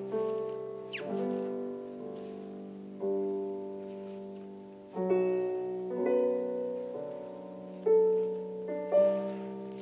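Background piano music: slow chords struck every second or two, each ringing and fading before the next.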